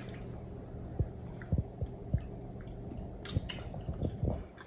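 People eating at a close microphone: soft chewing with several dull low thumps, and a few sharp clicks of forks against takeout containers about three seconds in, over a steady low hum.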